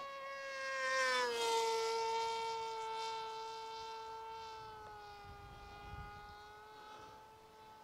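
Electric motor and propeller of an AR Wing Pro flying wing in flight, a steady high whine. It grows loudest about a second in as its pitch dips a little, then fades away.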